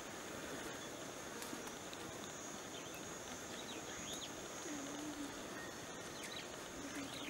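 Bush ambience: a steady high-pitched insect drone, with a few short bird chirps scattered through it.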